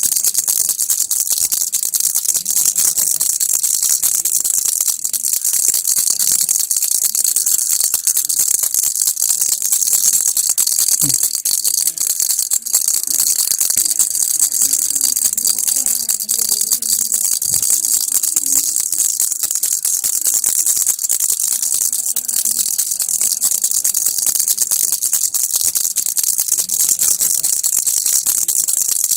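Baby rattle shaken continuously, making a dense, even rattling with no pauses.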